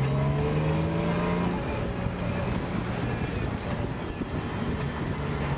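Classic car's engine pulling up through the revs, its pitch rising for about the first second and a half, then running on under a spread of road and wind noise, heard from inside the car.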